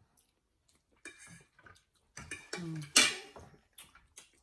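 Eating sounds at a table: clicks and clinks of a fork against a plate, with mouth noises, a short low hum a little past two seconds and one loud sharp sound about three seconds in.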